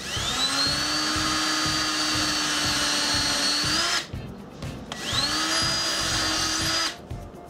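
Cordless drill boring pilot holes for screws in a cabinet panel. There are two runs of the motor, each spinning up and then holding a steady whine: a longer one of about four seconds, a short pause, then one of about two seconds.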